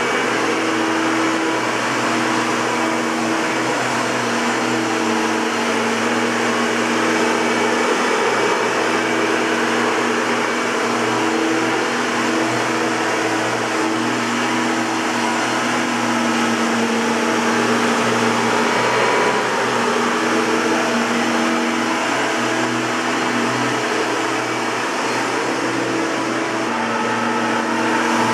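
Hoover Caddy Vac Elite (U5131-900) bagged upright vacuum cleaner running steadily, its motor hum briefly dipping and coming back now and then.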